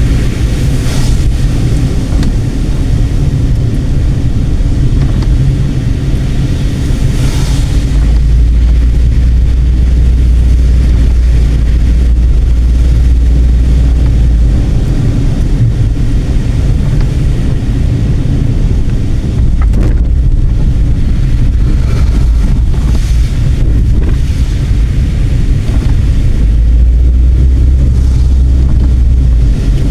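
A car on the move: steady, loud road and engine rumble, with heavier low buffeting that swells for a few seconds at a time.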